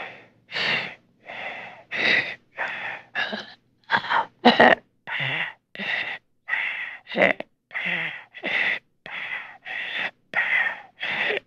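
A frightened person breathing fast and unevenly in short, anxious gasps, in and out, about one and a half breaths a second. A few breaths halfway through are louder and rougher.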